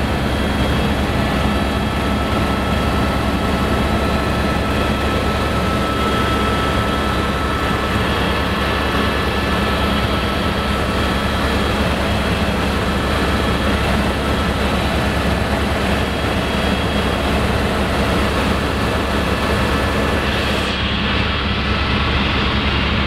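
Helicopter cabin noise in flight: a loud, steady drone of engine and rotor with several steady high whining tones. Near the end the highest hiss drops away while the drone goes on.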